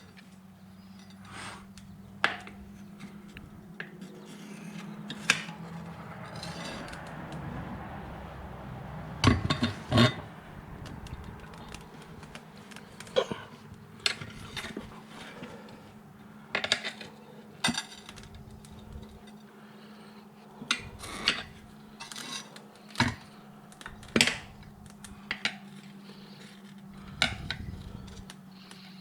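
Steel tire irons clanking and scraping against a spoked motorcycle wheel rim and each other, in irregular sharp knocks, as the last tire bead is levered onto the rim. A steady low hum runs underneath.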